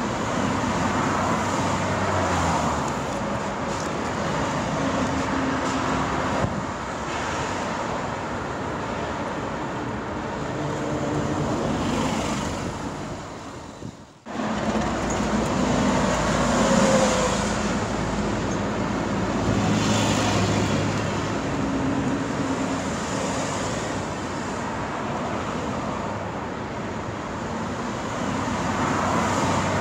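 Steady road and tyre noise with engine hum, heard from inside a car's cabin while driving on an expressway. The sound drops out briefly about halfway through, then carries on.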